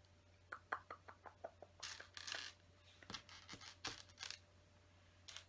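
Plastic LEGO pieces clicking and rattling as they are handled: a quick run of light clicks about half a second in, a brief rustle around two seconds, then more scattered clicks.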